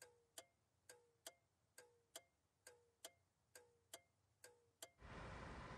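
Car turn-signal indicator ticking, an even tick-tock of about two clicks a second, alternating a lower and a higher click. About five seconds in it stops and a steady low rumble and hiss take over.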